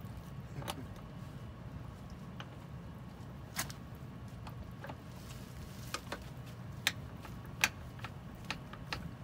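Scattered light clicks and taps from hands working at the bottom of a boat hull, with two sharper knocks about two-thirds of the way in, over a steady low hum.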